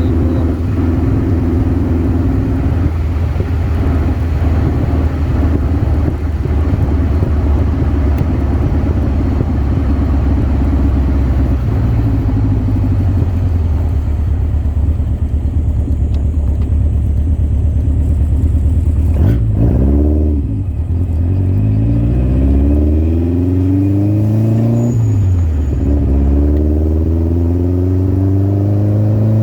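Birkin Seven's engine running at a steady cruise, then pulling up through the gears: the note drops at a shift about two-thirds of the way in, rises as the car accelerates, dips at another shift and climbs again near the end.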